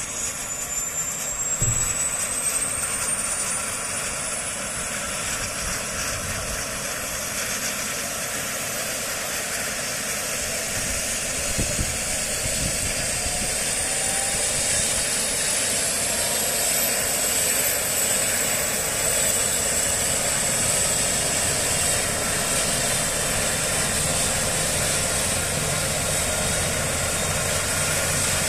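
Eurocopter EC135 helicopter starting up on the ground, its twin turbine engines spooling up: a high whine rising steadily in pitch, then a second rising whine starting about twelve seconds in that settles into a steady high whine over the engine and rotor noise.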